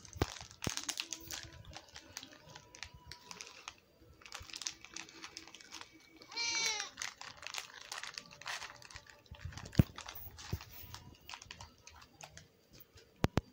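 A young tabby cat meowing once about halfway through, a short call that falls in pitch at the end: a hungry cat asking for food. Scattered small clicks and rustles run around it, with one sharp click a few seconds after the meow.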